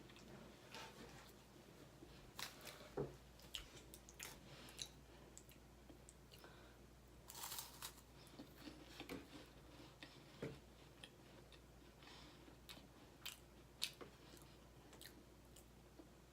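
Faint, scattered crunches and crackles of someone chewing crisp strawberry wafer cookies.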